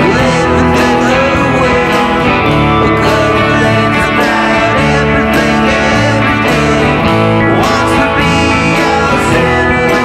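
Post-punk / dream-pop band song with strummed electric guitar, bass and snare drum, playing continuously at an even level.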